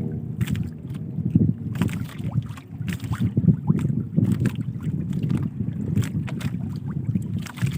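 Water sloshing and slapping against a small boat's hull, with scattered knocks and wind rumbling on the microphone.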